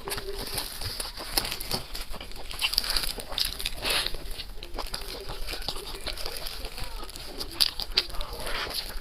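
Close-miked eating: irregular crunching and chewing of a jianbing guozi, a Chinese crepe with a crisp fried cracker inside, with louder crunches now and then.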